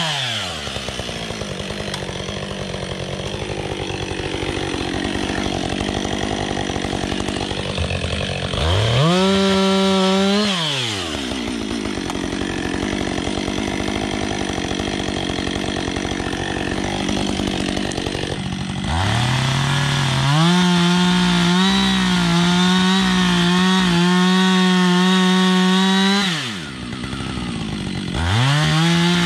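Husqvarna 555 two-stroke chainsaw limbing a felled red pine: it drops to idle at the start, revs up briefly around nine seconds in, idles, then runs at full throttle through a cut for about seven seconds with its pitch wavering under load. It falls back to idle and revs up again near the end.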